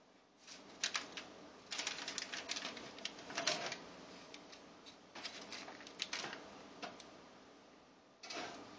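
A savannah cat rummaging in an open toaster oven: irregular bursts of sharp clicking and rattling as it works at the oven's door, rack and foil to get a chicken finger.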